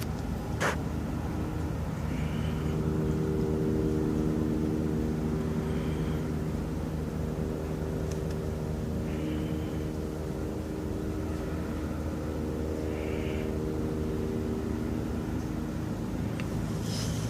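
NPAS Eurocopter EC145 police helicopter circling: a steady drone of rotor and turbines that swells a little a few seconds in. A few brief high chirps sit above it.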